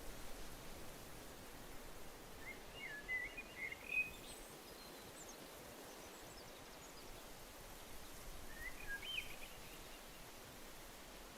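Quiet outdoor ambience with a faint steady hiss, and a small bird calling: a quick run of warbled chirps about two and a half seconds in, another short phrase near nine seconds, and fainter high chirps between.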